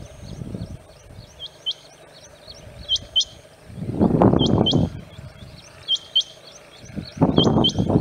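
Rain quail calling: high double notes, repeated about every one and a half seconds. Two bouts of louder low noise, about four seconds in and again near the end, partly cover them.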